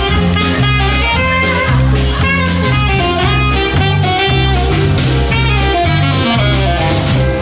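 A band playing an upbeat jazz tune, with a steady drum beat under a repeating bass line.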